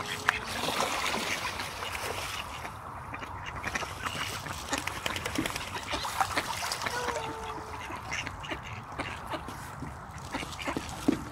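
A flock of mallards on a pond: scattered quacks and short calls over frequent small splashes in the water.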